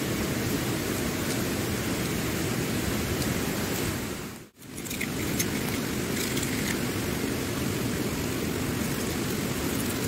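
Waterfall rushing: a steady hiss of falling water that dips away for a moment a little before halfway, then comes straight back.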